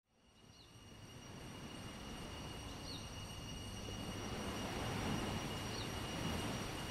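Tropical beach ambience fading in: a steady rushing of surf and breeze with a low rumble that swells about five seconds in, over steady high-pitched insect tones, with three short bird chirps.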